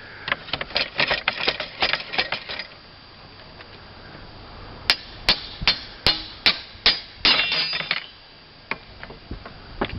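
Hammer striking a metal slate ripper in sharp taps while nails under the slates are cut and pulled. It starts with a quick run of taps, then after a short pause about six evenly spaced strikes and a brief ringing rattle.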